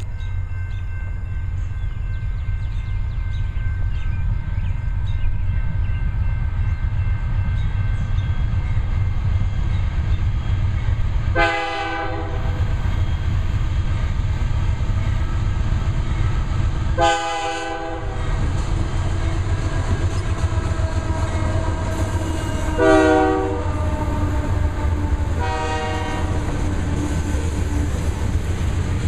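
GE diesel freight locomotives pulling a grain train, with a loud, steady low engine rumble throughout. The multi-tone air horn sounds four times: a short blast about a third of the way in, a longer one a little past the middle, then two short ones near the end.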